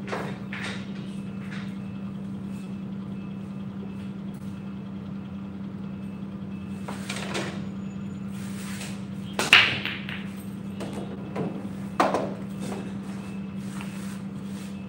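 Nine-ball break shot: the cue strikes the cue ball, which cracks into the rack, and the balls scatter clacking about two-thirds of the way in. About two seconds later comes another sharp ball click, over a steady hum.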